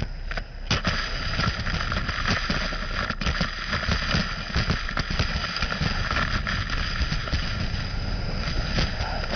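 Gutter vacuum system running with a steady high whine, moss and debris clicking and rattling as they are sucked up the hose from the gutter.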